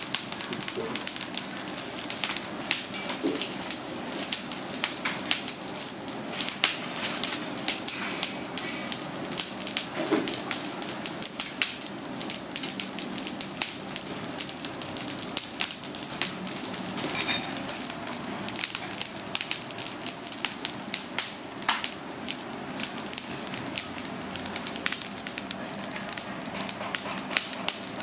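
Charcoal fire crackling and popping under a whole alligator gar roasting on the grill. It is an irregular run of sharp snaps over a low hiss.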